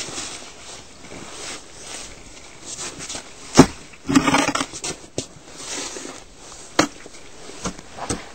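Snow shovel working packed snow: scraping and scuffing with irregular sharp knocks, the loudest about three and a half seconds in, followed by a short rasping scrape.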